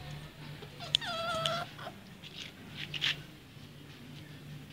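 A dog whines once, a high held note of just under a second about a second in, with a few short sharp clicks around it.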